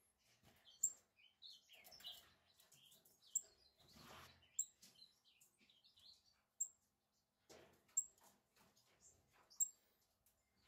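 Lazuli bunting nestlings begging while hand-fed with tweezers: short, sharp, high chirps every second or so, with softer twittering among them early on.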